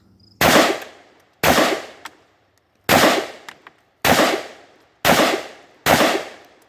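Rifle firing six single aimed shots about a second apart, each sharp crack followed by a short trailing echo.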